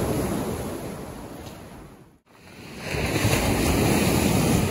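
Waves breaking and washing up a beach, with wind rumbling on the microphone. The wash swells and fades, drops out briefly about two seconds in, then swells again.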